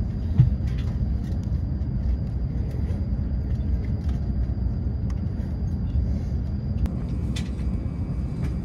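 Steady low rumble in the passenger cabin of a W7 series Hokuriku Shinkansen train, with a faint steady high whine and a few light clicks.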